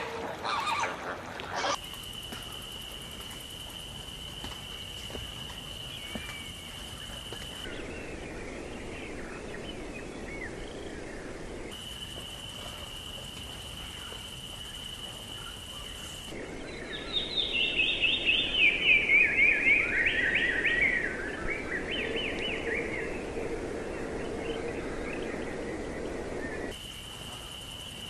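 Edited bed of outdoor bird sounds that changes abruptly every few seconds. Stretches with a steady high whine over background hiss alternate with stretches of scattered chirps. In the middle comes the loudest part: a bird's call of rapid notes sliding down in pitch, repeated for about four seconds.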